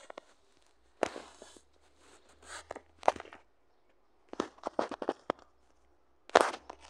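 Close handling noises: a string of sharp clicks and short rustling scrapes, a cluster of them about four to five seconds in, and the loudest scrape about six seconds in.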